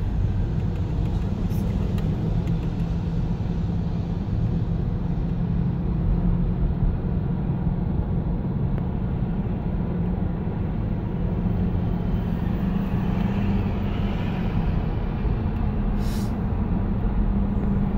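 Steady low road and engine noise of a car driving at freeway speed, heard from inside the cabin, with one short tick near the end.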